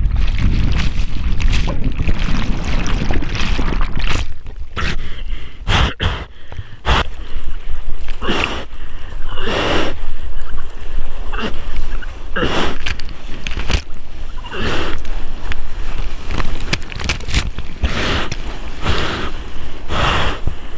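Surf whitewater churning and splashing close over a bodyboard-mounted camera. The wave's foam rushes over it first, then short splashes come about once a second in the second half.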